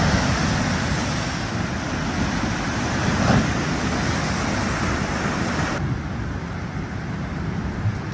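Rushing roar of a tsunami surge breaking over a flooded shoreline, a steady wash of water noise. The hiss thins out suddenly about six seconds in, leaving a lower rumble.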